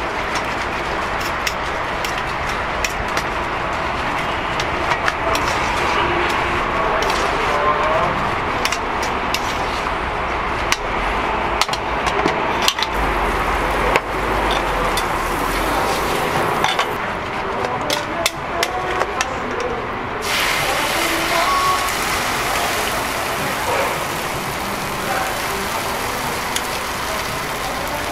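Metal tongs clicking and scraping against a stainless steel mixing bowl as shredded cabbage is tossed with egg, against a steady street background with voices. About twenty seconds in, a steady hiss of sizzling on a hot flat-top griddle sets in and continues.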